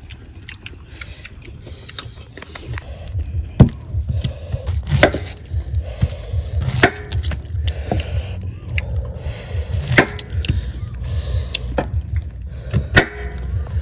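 Repeated sharp knocks and cracks at an uneven pace, with short bursts of scraping between them and a low rumble underneath.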